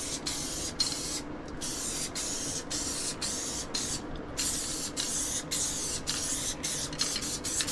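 Aerosol can of spray adhesive hissing in a quick series of short spurts, each about half a second long with brief breaks between them, as the adhesive is sprayed onto a rubber gasket and a wooden cap.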